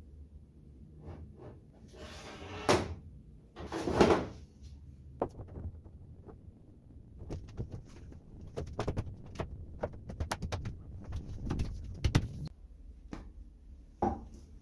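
A large flexible plastic sheet being handled over a table top. There are two swells of crackling rustle and many scattered clicks and light knocks, with a sharper knock near the end.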